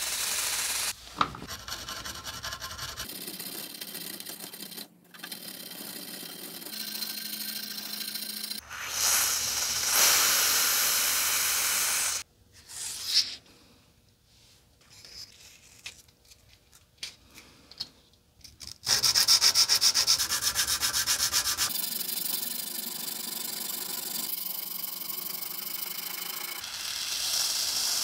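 Hand rubbing and scrubbing on the steel flat of a rusty carbon-steel yanagiba sashimi knife, working the surface rust off. It comes in several stretches that stop and start abruptly, with a quieter patch of small clicks and taps in the middle. The loudest part is a run of fast, even scrubbing strokes.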